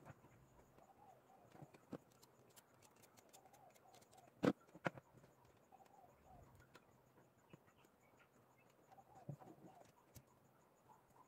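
Quiet handling of small wires and a soldering iron on a workbench: scattered light clicks and taps, with two sharper clicks about four and a half seconds in. Faint bird chirps come through in the background a few times.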